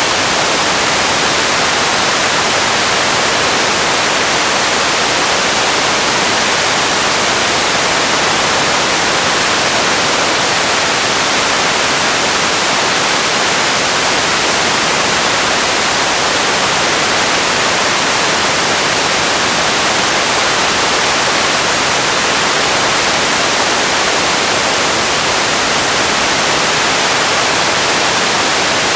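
Steady, even white-noise hiss, bright and with little bass, that does not change at all.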